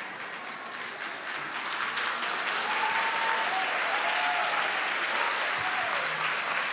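A church congregation applauding, the clapping swelling about a second in, with a few short cries rising over it.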